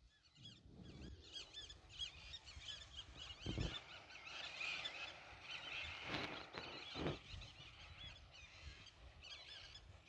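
A flock of small birds chirping, many short high notes overlapping in a busy twitter, with a few soft low thumps in the middle.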